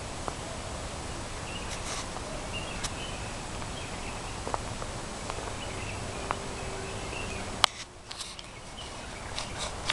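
Steady outdoor background noise with faint, high, short chirps and scattered sharp clicks. The loudest click comes about three-quarters of the way through, and the background drops right after it.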